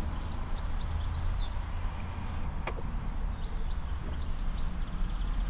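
Small songbirds chirping in two short runs of quick high notes, over a steady low rumble of wind on the microphone.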